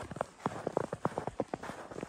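Footsteps crunching in fresh snow: a walker's boots on a snow-covered path, each step a short, crackly crunch at an even walking pace.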